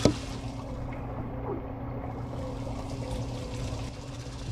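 Water trickling steadily over a low, steady hum, with one sharp knock right at the start.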